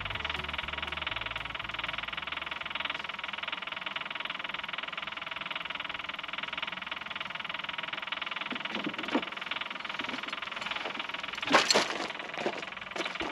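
John Deere 3038E compact tractor's three-cylinder diesel engine idling steadily, just restarted after a fuel filter and fuel-water separator change. A few sharp clanks sound near the end.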